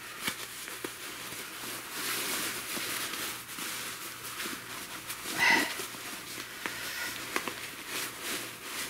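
Parachute-cloth hammock fabric rustling and crinkling as it is handled and pulled from its pouch, with small ticks from the handling and one short louder noise a little past halfway.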